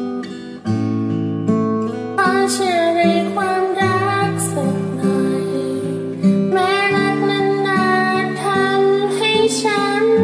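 Cover of a Thai pop ballad: a voice singing the melody over acoustic guitar.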